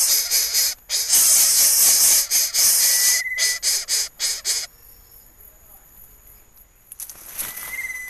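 Greater coucal nestlings hissing with gaping mouths, a loud hiss broken into rapid pulses that stops about four and a half seconds in; a fainter hiss starts again near the end.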